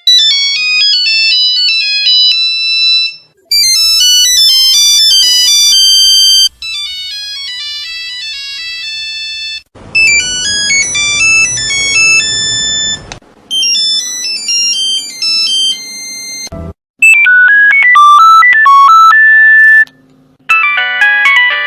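A series of Nokia mobile phone ringtones played back to back: short electronic melodies of simple stepped notes, each lasting about three seconds and cut off abruptly before the next one starts, about seven in all.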